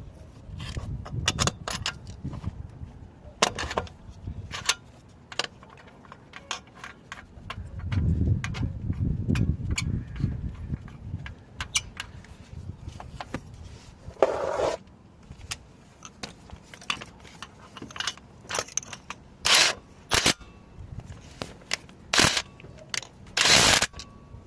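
Metal clinks, knocks and scrapes of hand tools and a car's starter motor as a new starter is worked into place, with a few short, louder noises in the last few seconds.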